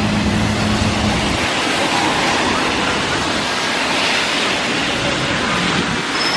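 Road traffic on a rain-soaked avenue: tyres hissing on wet asphalt, with a vehicle engine's low hum that fades out about a second and a half in. A car swishes past close by around four seconds in.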